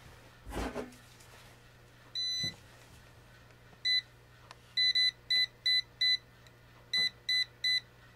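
Non-contact voltage tester pen beeping at a well pump's pressure switch terminals: single high-pitched beeps about two and four seconds in, then runs of quick beeps about three a second, showing the switch is still live. A brief handling knock comes near the start.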